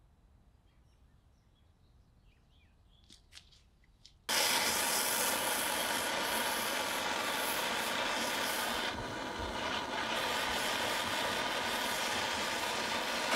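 A few faint clicks in near quiet, then about four seconds in a handheld gas torch starts up suddenly and hisses steadily as its flame heats an oiled steel knife handle.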